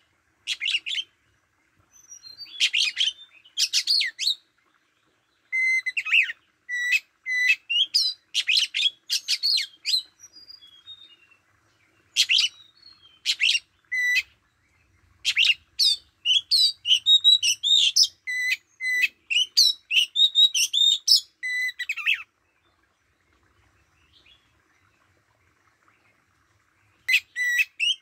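Oriental magpie-robin singing: loud bursts of varied whistled and chattering phrases, many opening on a short steady whistle. The song stops for a few seconds near the end, then starts again.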